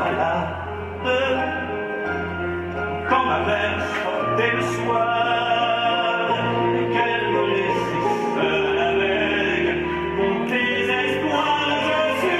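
Operatic-style music with a singing voice over deep bass notes that change every second or two.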